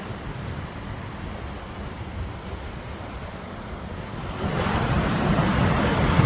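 Wind and surf at the ocean shore: a steady rushing that grows louder about four and a half seconds in.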